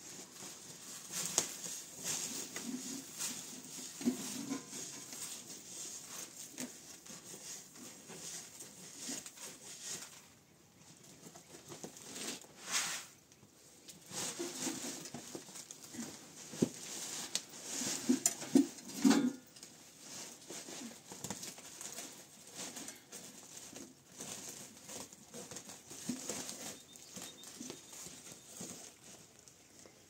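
Rustling and light clicking of things being handled by hand, a dense run of small taps and scrapes with a few louder knocks about halfway through.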